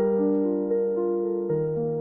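Background music: soft piano or electric keyboard playing sustained chords, changing about twice in the two seconds.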